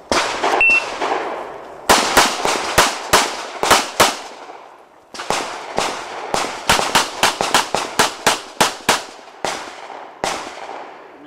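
Pistol shots fired in rapid strings at a practical-shooting match, each crack trailing off in echo. A single shot is followed by a string of about nine, a pause, then a longer fast string of about fifteen, and two fainter shots near the end.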